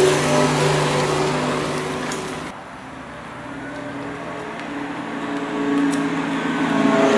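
Renault ZOE's pedestrian warning sound (the "spaceship sound"), a steady low hum under a shifting pattern of higher tones, with tyre noise as the electric car passes. It cuts off suddenly about two and a half seconds in, leaving a quieter hum, then swells again near the end as the car comes back.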